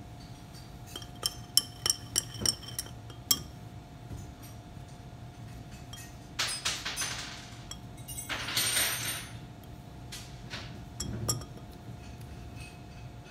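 Glass lab beaker clinking as lab gear is knocked against it: about six sharp, ringing clinks over two seconds. Later come two short hissing rushes about two seconds apart.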